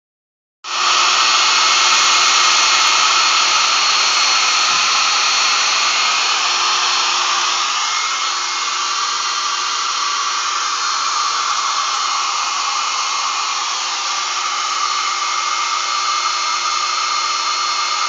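Hair dryer switched on about half a second in and running steadily: a loud rush of air with a steady whine over it.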